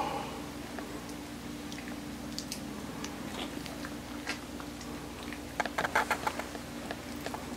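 Siberian Husky puppy chewing food taken from a hand: scattered small clicks and crunches, with a quick run of louder ones about six seconds in, over a steady low hum.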